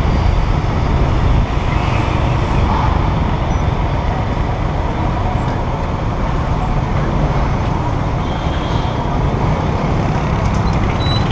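Motor scooter riding through city traffic: steady engine, road and wind noise with other traffic around it.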